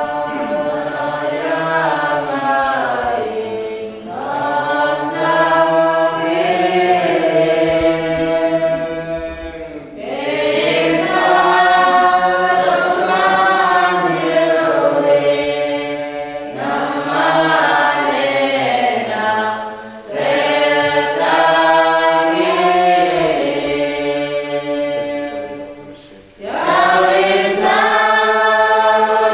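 Church choir singing a slow hymn in long, held phrases, with short breaks between phrases.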